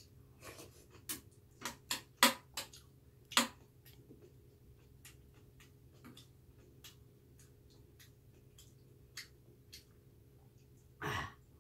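A metal spoon clinking and scraping against a stainless steel bowl of rice soaked in water: irregular sharp clicks, loudest in the first few seconds, then softer, sparser ticks.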